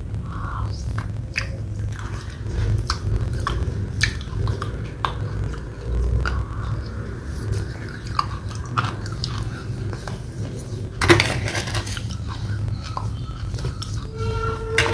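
Close mouth sounds of eating wet red clay paste off a metal spoon: wet smacking and chewing clicks, over a steady low hum. A louder noisy burst about eleven seconds in, and music starts faintly near the end.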